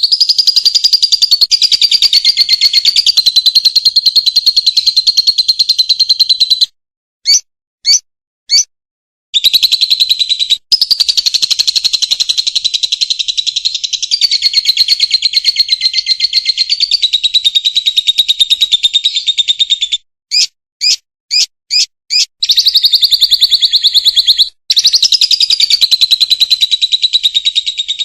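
Lovebird's long 'ngekek' song: a rapid, unbroken, high-pitched chattering trill held for several seconds at a time. It is broken twice by short runs of separate chirps, three and then five.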